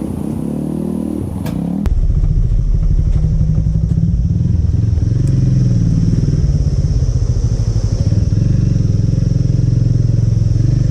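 Motor scooter engine running while riding, getting suddenly louder about two seconds in and then holding steady.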